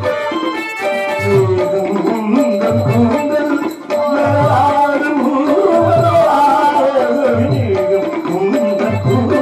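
Live folk-drama music: a voice singing through a stage microphone over tabla, with a deep drum stroke about once a second and a steady held drone note underneath.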